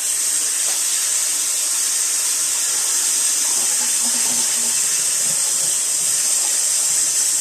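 Water running steadily from a kitchen tap, an even hiss that starts and stops sharply.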